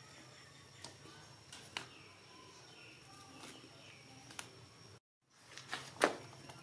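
Quiet ambience with a steady high whine and a few faint high chirps. Scattered light taps and rustles come as young macaques shift about and feed. The sound cuts out briefly about five seconds in, then a sharper knock is the loudest sound, just after.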